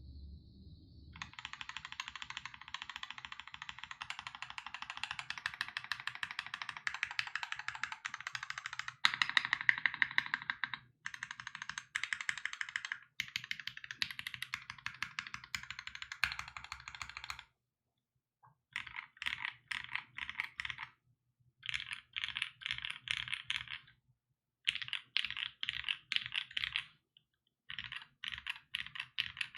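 Typing on a custom 60% mechanical keyboard, the Monstargear Sangeo60 with lubed 8008 Inks linear switches on an aluminium plate and PBT keycaps. Fast continuous typing at first, louder for a moment about halfway, then short bursts of typing with brief pauses between.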